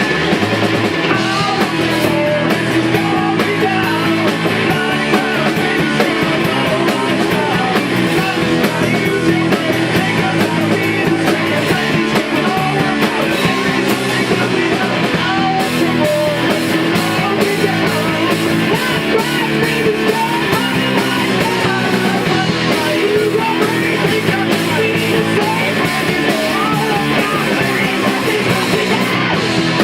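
A rock band playing a song in rehearsal: guitars over a drum kit, loud and continuous.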